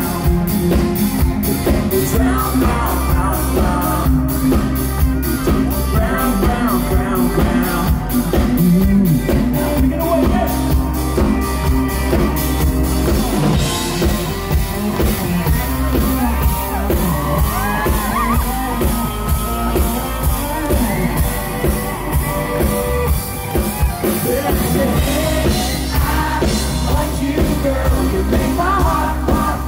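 Live country-rock band playing loudly through a PA, with a drum kit keeping a steady beat and electric guitar, and some singing and shouting over it.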